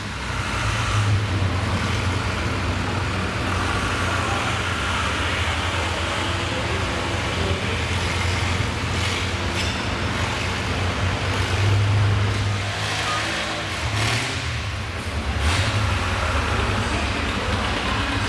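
Red Farmall tractor's engine running under load as it pulls a weight sled, a steady low drone that swells a few times.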